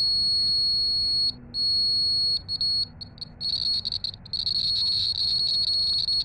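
Small electronic buzzer powered directly by a solar panel, sounding one steady high-pitched tone. The tone cuts out briefly several times and stutters for about a second near the middle.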